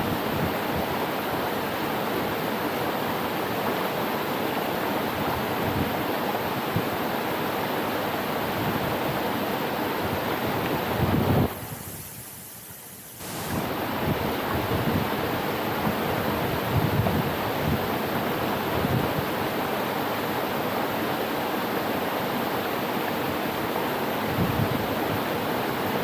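Steady rush of falling water from a waterfall, with wind buffeting the microphone in low gusts. The sound drops away suddenly about halfway through, then returns within two seconds.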